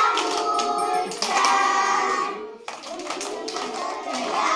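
A group of young children singing a song together while clapping their hands in time, with a short break about halfway through before the singing starts again.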